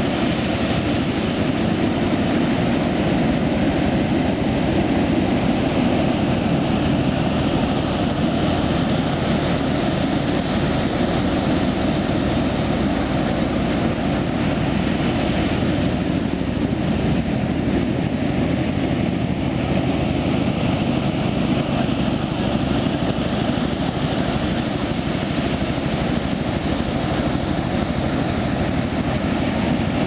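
Steady roar of ocean surf breaking on the beach.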